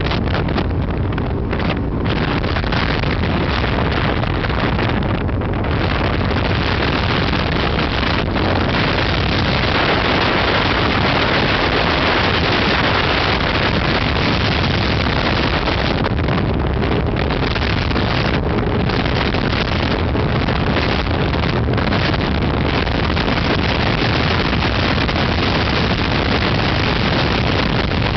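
HydroStream Vegas speedboat under way at steady speed: the engine's low hum under loud, continuous wind rushing over the microphone.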